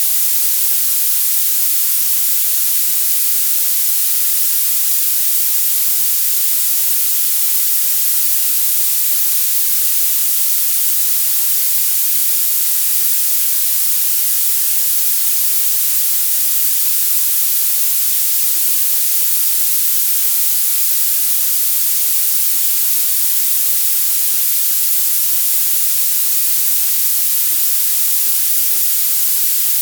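Violet noise: a steady, unchanging synthetic hiss weighted heavily toward the highest pitches, with almost no low end.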